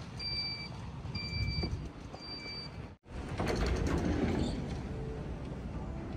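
A vehicle's reversing alarm beeping three times, about once a second, each beep a steady high tone, over a low rumble. After a brief break the rumble comes back louder.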